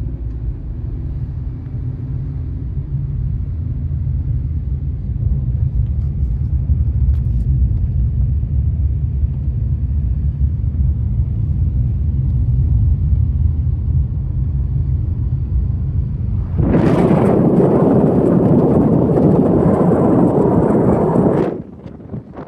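Low, steady rumble of a car driving, engine and road noise. About seventeen seconds in, a loud rushing noise breaks in for about five seconds and cuts off suddenly.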